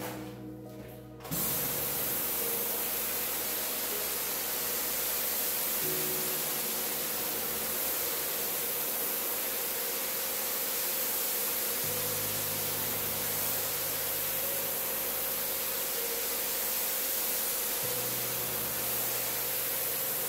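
Pressure washer spraying water onto a soaked rug: a steady, loud hiss of the jet that starts about a second in.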